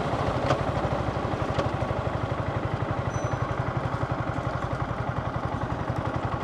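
Yamaha MT15's single-cylinder engine running at low revs, an even low pulsing beat close to idle, with a couple of faint clicks about half a second and a second and a half in.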